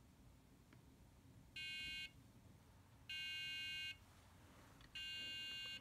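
The alarm buzzer on a Dragon12-Light HCS12 microcontroller board gives three separate electronic beeps with a harsh, buzzy tone, each under a second long, about a second and a half apart. This is the alarm going off after the door-open countdown ran out without the system being disarmed.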